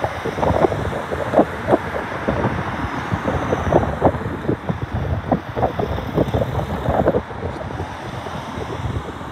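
Cars driving past close by: steady tyre and engine road noise, with wind buffeting the microphone in irregular crackles through most of the first seven seconds.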